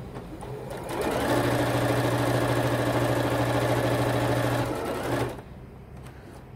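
Electronic sewing machine stitching at a steady speed through layered patchwork fabric, starting about a second in and stopping after about four seconds.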